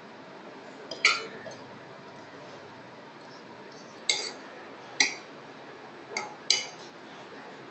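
A steel spoon clinking against a metal cooking pot while cooked basmati rice is spread in the pot: five sharp ringing clinks, the last two close together near the end.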